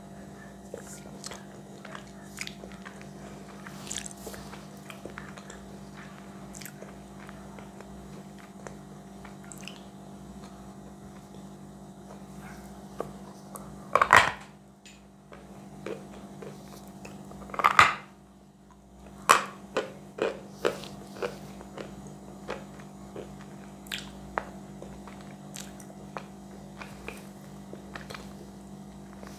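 Close-miked biting and chewing of a lump of chalk. Soft crackly chewing gives way to loud crunching bites about 14 and 18 seconds in, then a run of smaller crunches.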